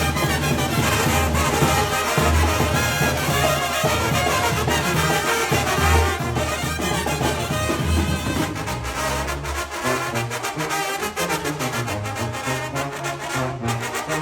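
Mexican banda music led by a brass section playing over a pulsing deep bass line; the bass notes thin out about eight seconds in.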